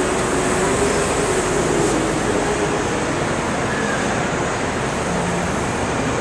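A heavy truck engine running steadily, a constant noise with a faint hum.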